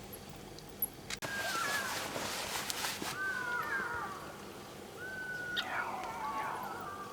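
Animal calls at night: a series of thin, wavering whistle-like calls, several overlapping and some sliding downward, in two spells about a second and five seconds in. A loud hissing rustle runs under the first spell.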